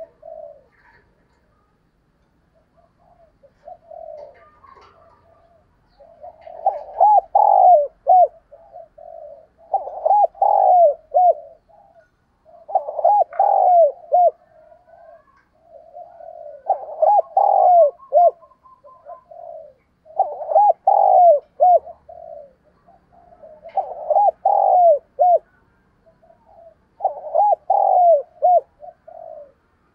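Spotted dove cooing. A phrase of several coos repeats about every three to four seconds. It is faint for the first few seconds and loud from about six seconds in.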